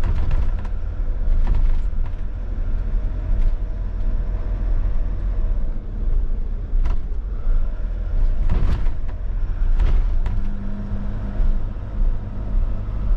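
Fiat Ducato-based motorhome driving slowly, a steady low rumble with scattered light knocks and rattles.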